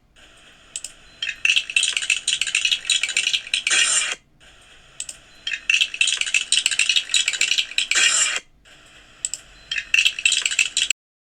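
Loose LEGO pieces clattering and rattling in three stretches of a few seconds each, separated by short quieter gaps. The sound cuts off suddenly shortly before the end.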